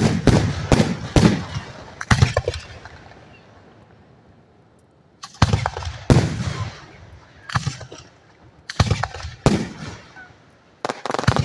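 Aerial fireworks shells bursting directly overhead: a dozen or so sharp booms in quick clusters, each with an echoing tail, with a lull of about three seconds in the middle.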